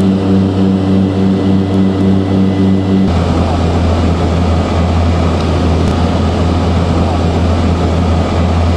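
Propeller airplane engine running loud and steady, its note shifting about three seconds in.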